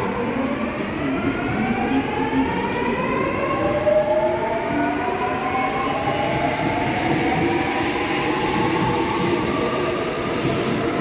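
Electric subway train pulling away from the platform: its motor whine rises steadily in pitch as it gathers speed, over a constant rumble of the wheels.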